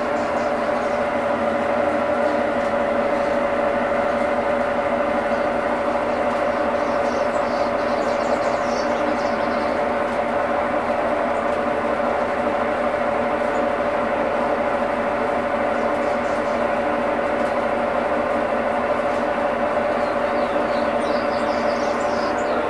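Brastemp 11 kg washing machine running with a loud, steady mechanical hum and a constant droning tone that never lets up: the abnormal noise the machine is making.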